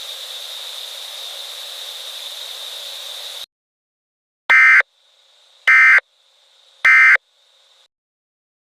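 Steady static hiss with a faint high whine cuts off about three and a half seconds in. Then come three short, harsh data bursts about a second apart: the Emergency Alert System end-of-message tones that close the alert.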